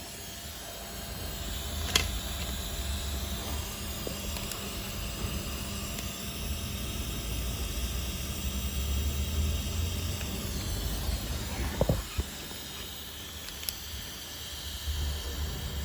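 SMC IDF1E refrigerated compressed-air dryer running: a steady low hum from its refrigeration compressor with a hiss of air throughout. A sharp tap comes about two seconds in and a couple of knocks near twelve seconds.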